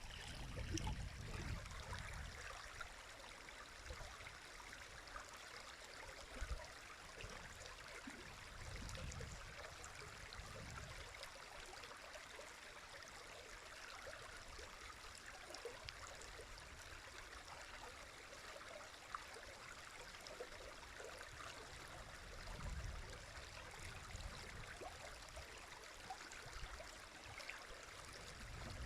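A river running, a steady rushing of water, with a low rumble that swells up a few times.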